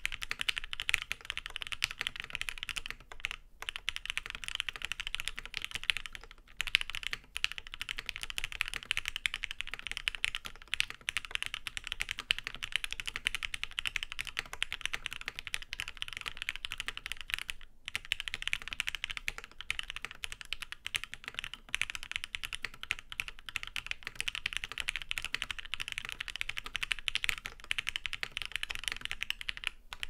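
Continuous fast typing on a Geon Works Frog TKL custom mechanical keyboard with lubed Gateron Ink Black linear switches on an FR4 half plate, GMK keycaps and no sound damping: a dense run of key clacks that breaks off briefly a few times.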